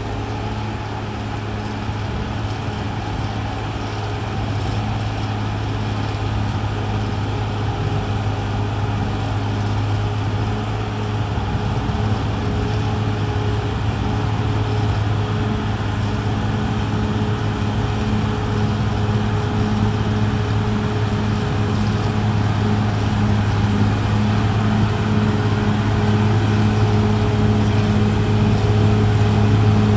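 CAT D6R XL bulldozer's diesel engine running at a steady pitch, growing gradually louder.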